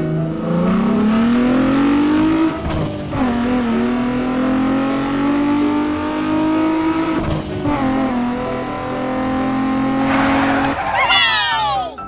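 Car engine accelerating, its pitch climbing and dropping sharply twice as it shifts gear, then tyres squealing near the end.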